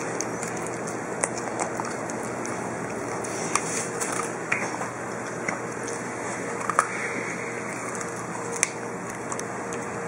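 Norwegian Elkhound puppy chewing a carrot out of a rubber Kong toy: scattered crunches and sharp clicks over a steady hiss, the sharpest a little past halfway.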